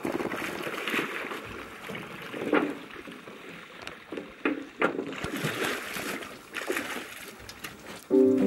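Paddle strokes in water, each an irregular short splash over steady sloshing and lapping. Music comes in near the end.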